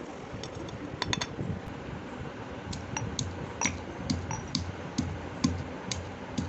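Irregular light clicks and clinks, some with a short metallic ring, over a steady low rumble: kitchen utensils being handled.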